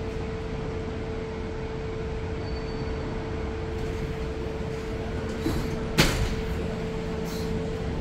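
A steady machinery hum with one even tone over a low rumble, and a single sharp knock about six seconds in.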